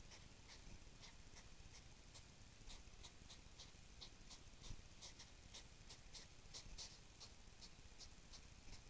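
Faint rhythmic huffing, about three short puffs a second: hedgehog courtship snorting during mating.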